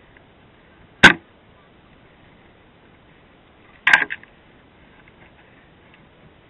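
Two sharp knocks, from the dirt bike and camera being banged about in brush: one about a second in, then a quick rattle of several near four seconds. The bike's engine is not running.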